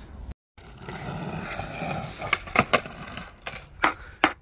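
Skateboard wheels rolling on concrete, then several sharp clacks of the board striking the ground.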